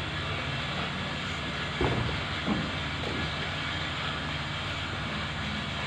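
An engine running steadily, with a few short knocks a couple of seconds in.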